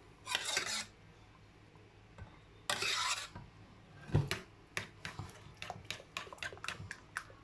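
A spoon scooping pap and stirring it into thick oatmeal gel in a dish. Two short scrapes come first, then from about four seconds in a quick run of clinks of the spoon against the dish.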